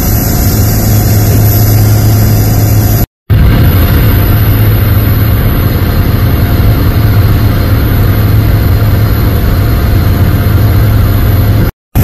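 Aircraft engine drone heard from inside the cabin during flight: a loud, steady low hum with a thin high whine above it. It cuts out twice for a moment.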